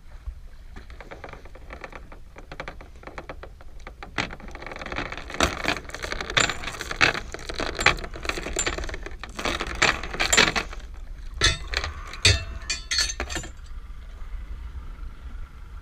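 Anchor being hauled up by hand over the bow of a small boat: a long run of metallic clinks and rattles, thickest from about four seconds in until about thirteen seconds in.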